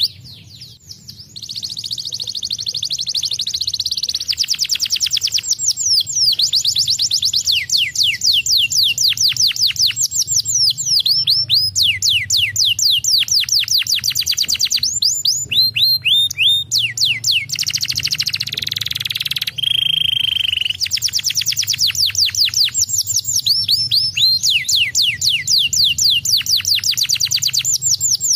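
Canary singing a long, unbroken song of rapid trills made of quickly falling whistles repeated many times a second, changing speed from phrase to phrase, with buzzy rolls near the start and about eighteen seconds in, and a short steady whistled note just after.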